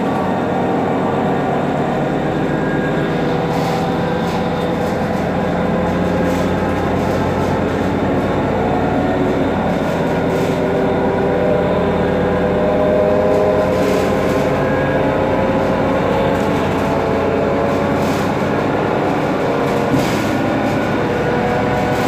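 Mercedes-Benz Citaro C2 city bus idling while stationary: a steady engine hum with several whining tones over it that drift slightly in pitch, and a few short bursts of hiss.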